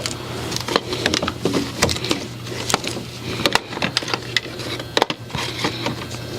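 Irregular clicks and light knocks of parts and tools being handled in an engine bay, over a steady low hum.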